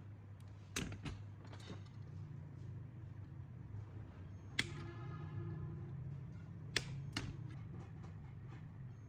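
Several sharp clicks and knocks of hard objects over a steady low hum; the knock about halfway in is followed by a short ringing tone that dies away within about a second and a half.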